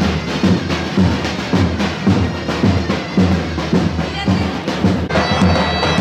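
Traditional folk music: a big drum beating steadily, with a shrill wind instrument joining with a held, piercing tone about five seconds in.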